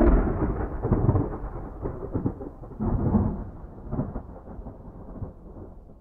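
Rolling thunder: deep rumbles that swell again about one, three and four seconds in, then fade away toward the end.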